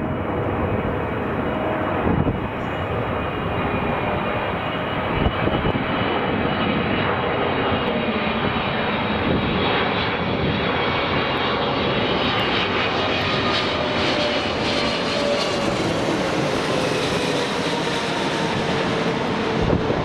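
Boeing 777 twin jet engines on landing approach, passing overhead: a steady jet rumble with a whine that grows fuller as the airliner comes over and drops in pitch as it goes away. Gusty wind buffets the microphone.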